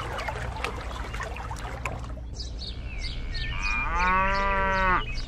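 Birds chirping with short high calls, and a cow mooing once, a long moo about four seconds in. Faint crackling noise comes before them in the first two seconds.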